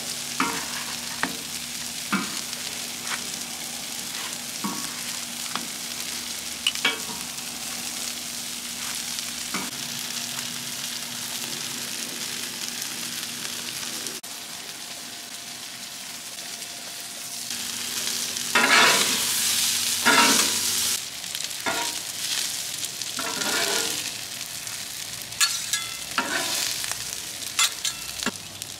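Food sizzling steadily on a Traeger Flatrock flat-top griddle. Through the first ten seconds or so, sharp clicks of metal tongs sound as taquitos are turned. From about two-thirds of the way in come louder, rough bursts of metal spatulas scraping and chopping across the griddle top.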